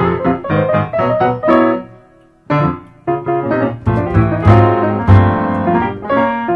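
Background music: piano playing a quick melody of short notes, with a brief pause about two seconds in.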